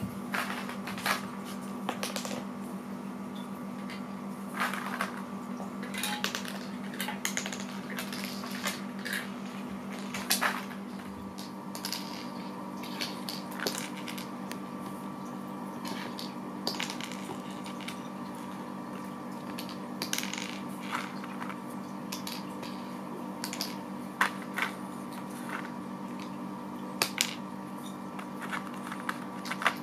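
Pieces of a balance game clicking and clinking irregularly as they are handled and set down, over a steady hum.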